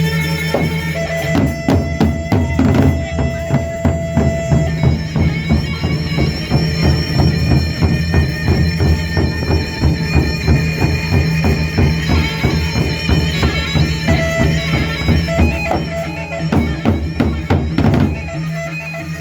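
Traditional percussion ensemble playing: fast, dense drum strokes over a steady droning melody, the drumming thinning out near the end.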